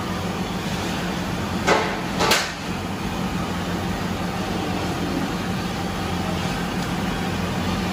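Steady background hum, with two short knocks about half a second apart a couple of seconds in, from the metal pot and the soan papdi dough being worked in a large steel kadhai.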